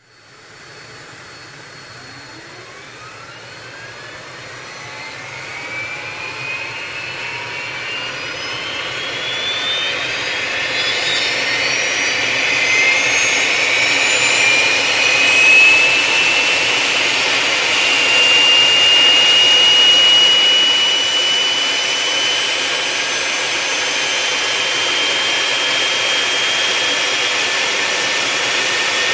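Jet engine spooling up: a high turbine whine rises steadily in pitch and loudness over the first dozen seconds or so, then settles into a steady high whine over a loud rushing sound as the engine reaches running speed.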